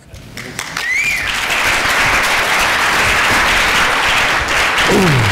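Audience applauding, building up over the first second or so and then holding steady, with a brief whistle about a second in.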